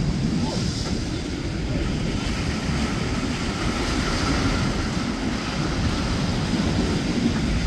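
Triple outboard engines of a passing Cruiser Yachts cruiser running at cruising speed, a steady low drone mixed with the rush of its wake and surf. Wind is buffeting the microphone.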